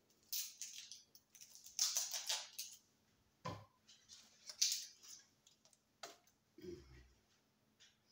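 Kitchen knife slicing an onion into julienne strips on a cutting board: irregular sharp knife strokes and scrapes, with a duller knock near the end.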